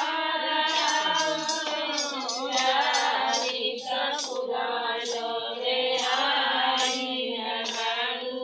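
A group of women singing a devotional song to Shiva together in long held notes, with rhythmic clapping keeping time.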